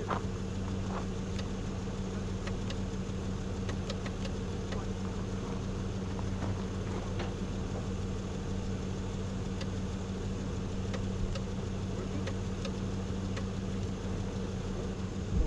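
4x4 truck engine idling steadily, with occasional light clicks over it.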